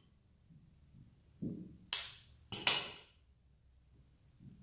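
Metal spoons clinking sharply together twice while apple and walnut filling is scraped off onto the dough, just after a soft thud of filling landing.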